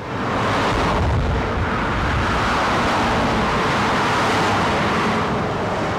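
Steady noise of heavy highway traffic, many cars and trucks passing together on a multi-lane highway, swelling up in the first half second.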